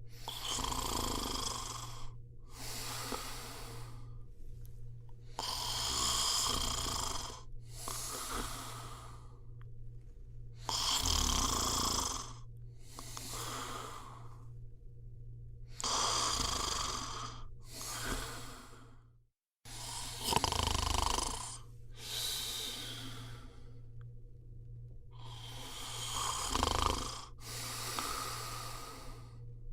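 A person snoring in slow, regular breaths, about one every five seconds. Each breath is a longer raspy snore with a low rattle, then a shorter breathy rush of air, over a steady low hum. The sound cuts out for a moment about two-thirds of the way through.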